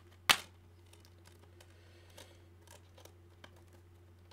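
Plastic Blu-ray case handled and opened, with one sharp snap about a third of a second in, then faint small clicks and rustles of the plastic in the hands.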